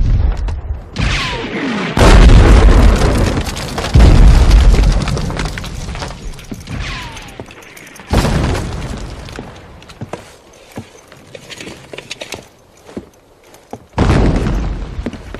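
Artillery shells exploding in a film battle soundtrack: five heavy booms, each dying away over a few seconds, the first three about two seconds apart. Two of the blasts are preceded by a falling whistle of an incoming shell, and scattered small knocks follow in the lull near the end.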